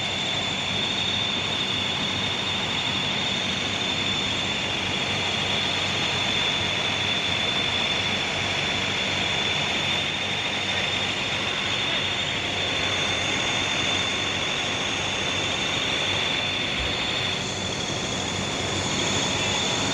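Steady running noise of a large vehicle engine, most likely a parked bus idling, with a constant high-pitched whine over it. The noise dips briefly near the end, then picks up again.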